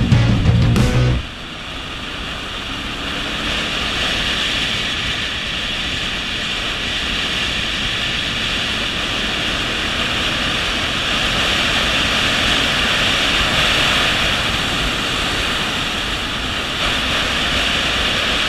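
Steady rush of wind and road noise over the microphone of a camera mounted on a motorcycle riding at speed. Rock music cuts off about a second in.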